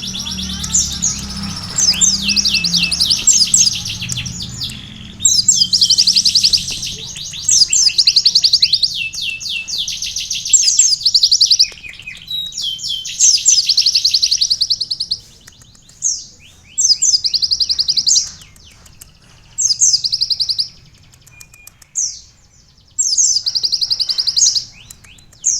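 Kolibri ninja sunbird singing a canary-like song of fast, high trills in repeated phrases, nearly unbroken at first and then with short pauses between phrases in the second half.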